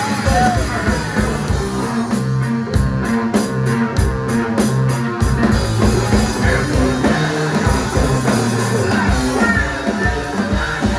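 A rock band playing live: drum kit keeping a steady beat under bass guitar and electric guitar.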